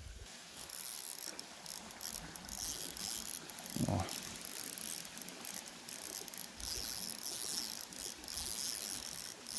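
Spinning reel being cranked, a fast mechanical ticking whir that starts and stops, as the lure is reeled in against a snag. A short low sound comes about four seconds in.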